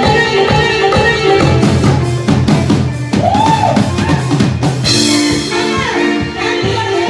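Music with a drum-kit beat under sustained melodic notes, with a swooping rise-and-fall pitch sweep about three seconds in.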